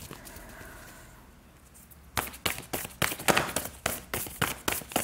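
Tarot deck being shuffled by hand: a run of quick, sharp slaps of cards, several a second, starting about two seconds in.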